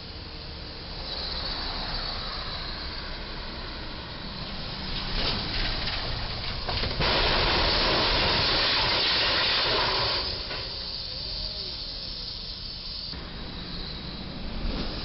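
An overheight box truck strikes the steel crash beam of a low railway bridge: a few clanks, then a loud scraping crash of the truck's box roof against the beam lasting about three seconds. A steady noise runs under it throughout.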